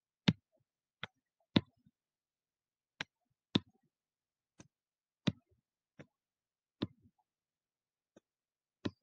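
Computer mouse button clicks as a highlighter is dragged across lines of text: about a dozen short, sharp clicks at irregular spacing, several in press-and-release pairs about half a second apart.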